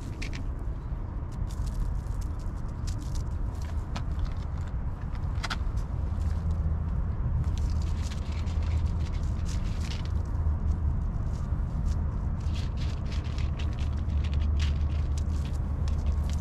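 A steady low rumble that grows stronger about six seconds in, with scattered sharp clicks and crackles over it.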